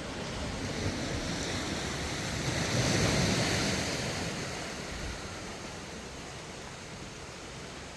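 Sea waves breaking on the shore: a wash of surf that swells to a peak about three seconds in, then draws back to a steadier rush.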